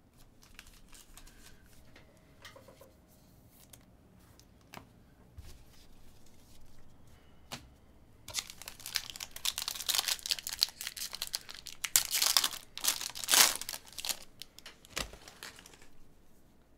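A trading-card pack wrapper being torn open and crinkled, a dense run of crinkling that starts about eight seconds in and lasts some six seconds. Before it there are only light handling sounds of cards.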